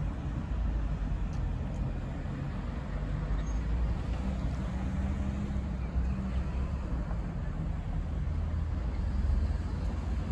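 Street traffic: a car or van engine running past, over a steady low rumble.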